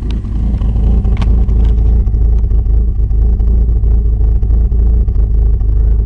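Modified Honda Accord (CB7) engine with a performance cam idling at about 950 rpm, heard close to the large exhaust tip: a deep, steady exhaust note with an uneven cam lope. It grows louder over the first couple of seconds as the microphone nears the tailpipe.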